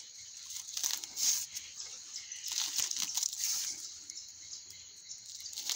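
Black plastic tape crinkling and rustling in irregular bursts as it is peeled and unwound from an air-layered lemon branch.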